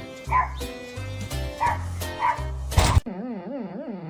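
Music with short dog barks landing in time with the beat, ending on a loud hit about three seconds in. After an abrupt cut, a dog whines in a wavering, up-and-down pitch.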